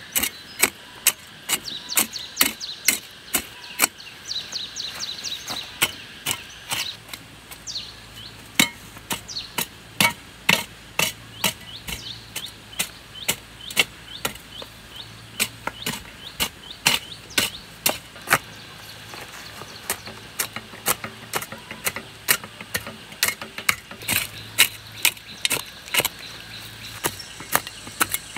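Repeated sharp knocks of a hand tool striking, irregular, about two to three a second.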